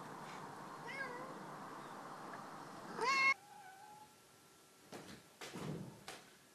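Domestic cat meowing: a faint meow about a second in, then a loud rising meow about three seconds in, followed at once by a shorter, quieter one. A few soft knocks near the end.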